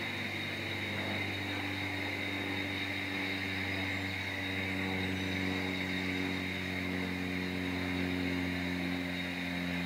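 A steady engine drone: several held low tones drifting slowly in pitch, a little louder in the middle.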